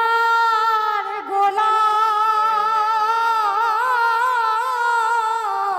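A woman's voice singing one long, high held note of a Baul song, with a brief break about a second in and a widening vibrato toward the end, where it falls away.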